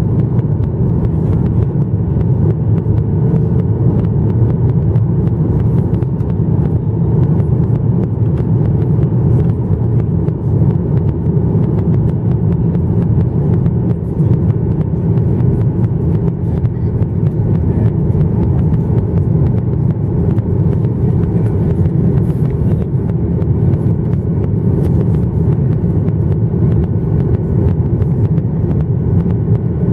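Steady low drone heard inside the cabin of a Boeing 737-900ER airliner in flight, from its CFM56-7B turbofan engines and the air rushing past the fuselage. The noise is even and unbroken throughout.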